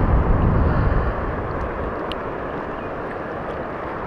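Steady rushing noise of wind on the microphone and moving river water, with heavy low buffeting in the first second that then settles to an even rush.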